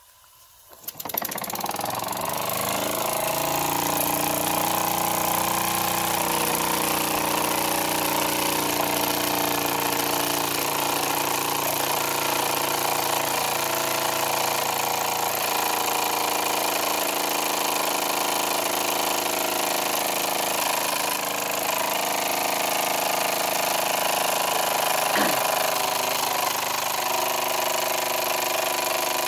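Wilesco toy live-steam engine restarted by turning its flywheel about a second in: it picks up speed over the next couple of seconds, then runs fast and steady.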